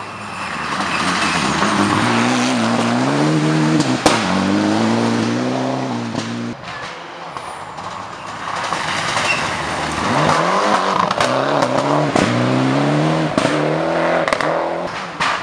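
Rally cars passing at speed on a gravel stage, in two separate passes: the engine note rises and falls with gear changes and lifts of the throttle, over the noise of tyres and flung gravel. There is a sharp bang about four seconds in.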